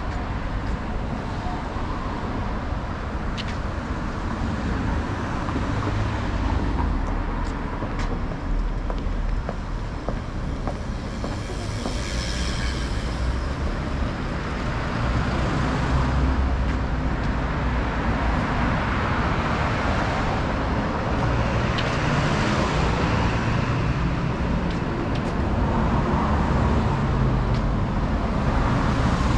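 Road traffic on a city street: cars and vans driving past in a steady rumble. One vehicle passes close about twelve seconds in, and the traffic swells again about twenty seconds in.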